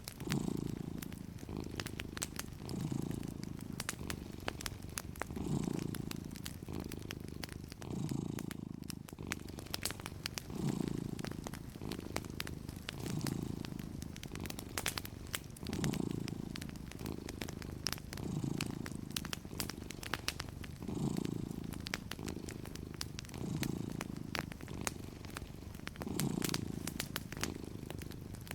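A cat purring steadily, the low rumble swelling and easing with each breath about every two and a half seconds. Light fireplace crackle gives scattered small pops throughout.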